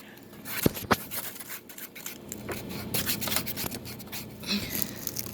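Scraping and rubbing handling sounds, with two sharp knocks about a second in, over a faint steady hum.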